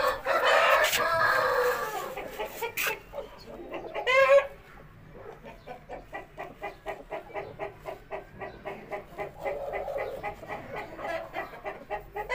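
Chickens: a rooster crows loudly at the start, and a short loud squawk comes about four seconds in. Then a quieter, steady run of clucking follows, about four clucks a second.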